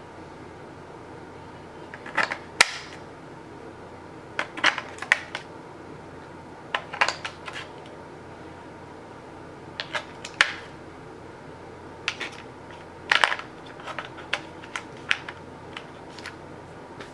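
AA batteries being fitted one by one into a handheld RC transmitter's battery compartment: short clusters of sharp clicks and knocks of the cells snapping against the contacts, about every two to three seconds.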